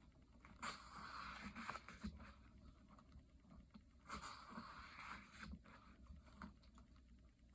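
Paper pages of a coloring book being turned, two soft rustling swishes about three and a half seconds apart, with small paper ticks between.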